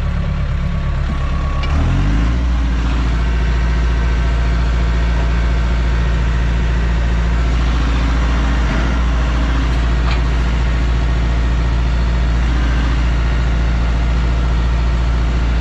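Tractor's diesel engine running steadily, heard from inside the cab; about two seconds in the engine note steps down to a lower speed and then holds.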